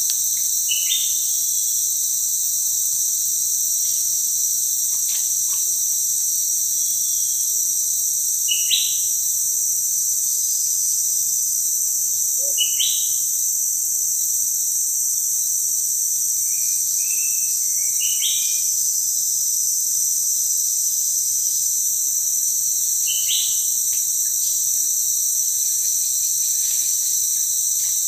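Steady, shrill chorus of rainforest insects, with a bird's short sweeping call heard five times, every four to five seconds.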